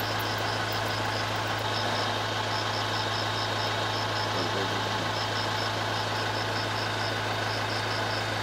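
A safari jeep's engine idling steadily with a constant low hum. Over it runs a high chirping in runs of short, even pulses.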